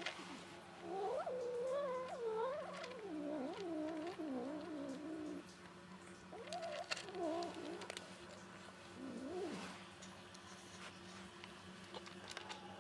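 A domestic cat growling in low, wavering moans while she eats: one long stretch from about a second in, a shorter one just past the middle, and a brief one near the end. It is the angry growl of a cat objecting to being touched at her food.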